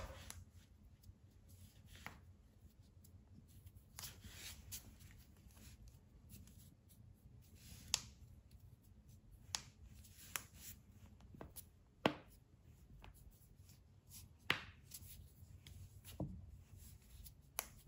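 Human joints cracking: a series of single sharp pops, about eight of them, a second or two apart and mostly in the second half, with soft rustling of hands and clothing between them.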